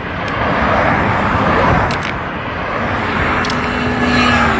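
Loud, steady outdoor street din with traffic noise. A held pitched tone sounds for about a second and a half near the end.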